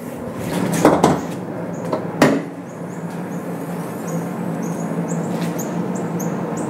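Honda CR-Z hood being popped and opened: a sharp clunk about a second in as the latch releases, a second clunk about a second later, then a steady low hum with the hood standing open on its gas strut.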